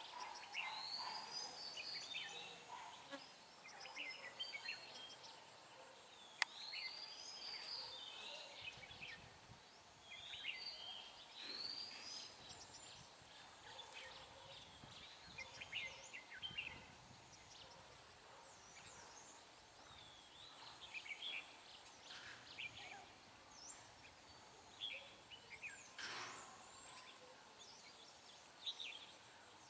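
Red-whiskered bulbuls singing: short phrases of arching whistled notes every few seconds, with scattered chirps between, a caged decoy and a wild bird in a song duel at a trap. A single sharp click about six seconds in.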